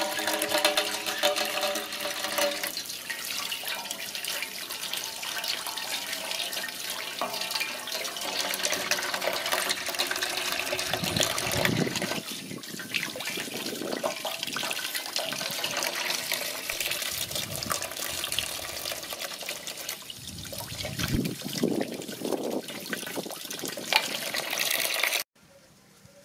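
A thin stream of running water pouring over ripe tomatoes as they are rinsed by hand and splashing into a basin of water. The steady splashing cuts off suddenly near the end.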